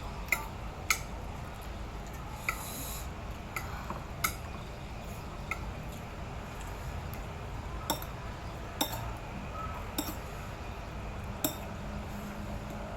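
Cutlery clinking against a plate while eating: about ten short, sharp clinks at irregular intervals, the loudest near the start and about four seconds in.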